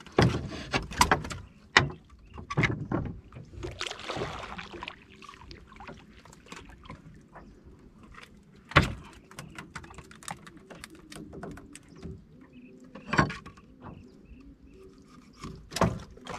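Irregular knocks and clatter on a wooden fishing boat as gear is handled, a cluster of them at the start and single sharp knocks about nine, thirteen and sixteen seconds in. A brief hiss comes about four seconds in.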